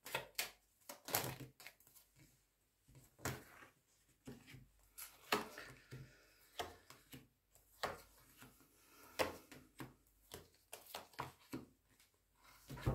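Tarot cards being shuffled and handled on a table: soft, irregular clicks and taps, a few every second.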